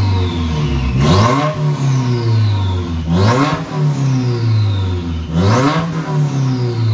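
2018 Subaru WRX's turbocharged 2.0-litre flat-four, Stage 2 tuned, revved through an open downpipe with no catback fitted: three blips, each climbing sharply and sinking back toward idle, with a thin high whistle falling away after each.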